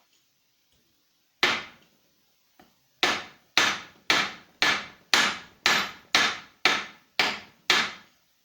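Hammer blows: a single strike, then after a pause a steady run of ten strikes, about two a second.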